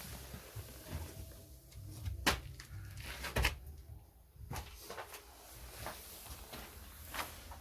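Scattered sharp knocks and clicks from hand tools and metal parts being handled while a car's rear wheel is removed, over a low rumble.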